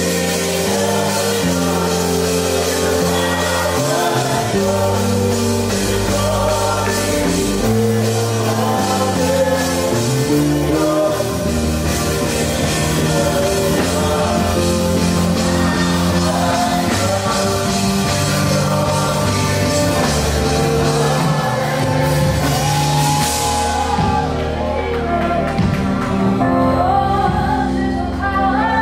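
Live worship band playing: vocalists singing over electric guitars, keyboard and drums. About 24 s in, the bright high end drops away and the band plays on more softly under the singing.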